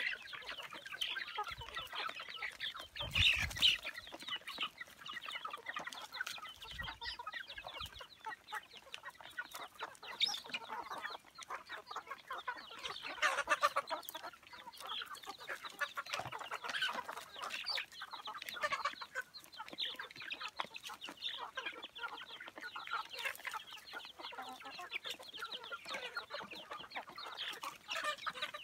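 A flock of young chickens clucking and chirping continuously while they feed, with a brief thump about three seconds in.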